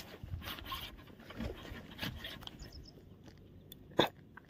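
Faint scrapes and clicks of the camera and gear being handled, with one sharper knock about four seconds in as something bumps close to the microphone.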